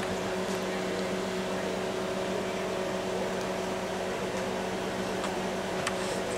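Steady machine hum with a constant low tone, unchanging throughout, and a couple of faint clicks near the end.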